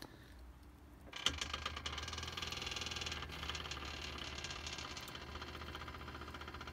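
A small motor starts about a second in and runs steadily with a fast rattling whir while the homemade truck-bed hoist moves its hanging load.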